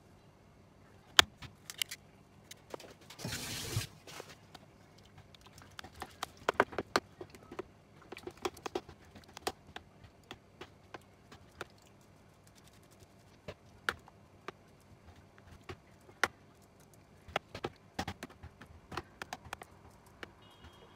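An egg cracks sharply about a second in. Then a fork scrapes and clicks lightly and irregularly against a plastic food container as egg and seasonings are stirred into raw chicken pieces.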